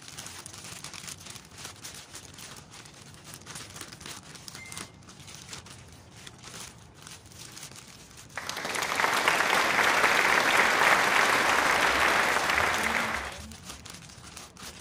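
Clear plastic bag crinkling and rustling as aloe vera gel is squeezed and kneaded inside it: soft scattered crinkles at first, then a loud, dense rustle for about five seconds a little past the middle that stops abruptly.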